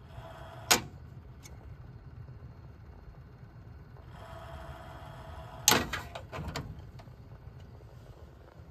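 Cheap Apevia PC case fan that has been growling and struggling to get up to speed, held with a screwdriver through its grille: the fan growls with a pitched buzz twice, each time ending in a sharp clack of blades against the screwdriver. The second clack, about six seconds in, runs into a quick rattle of ticks as the screwdriver is pulled out, over a steady low hum of the other computer fans.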